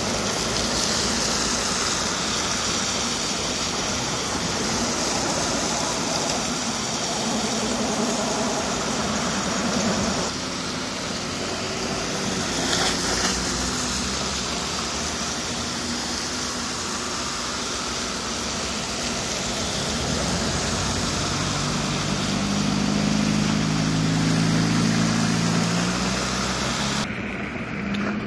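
Car engine and road noise heard from inside the cabin while moving slowly in traffic, a steady hum and hiss. A deeper engine drone swells and shifts in pitch a few seconds before the end, then the sound turns abruptly duller.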